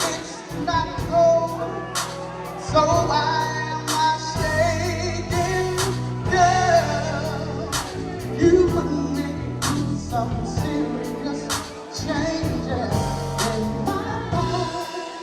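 An R&B song: a solo voice sings a melody over a backing track with a steady drum beat and bass.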